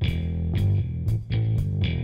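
Guitar-led background music with bass and a steady beat.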